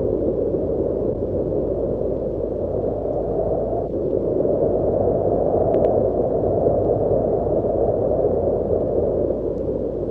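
Wind sound effect: a steady low rushing breeze that swells and eases slowly, with little hiss at the top.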